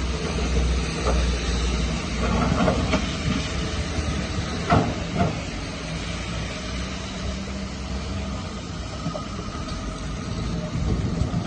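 Heavy earthmoving machinery, a bulldozer or dump truck, running: a steady low diesel rumble with scattered metallic clanks and knocks, the sharpest about four and a half seconds in.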